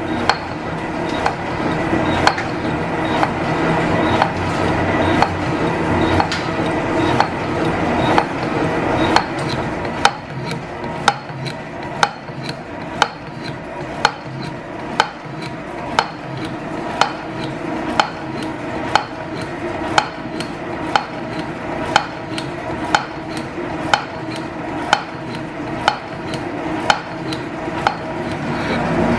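Metal shaper cutting the side of a steel block, its ram going back and forth with a sharp click about once a second on each stroke, over a steady mechanical running noise.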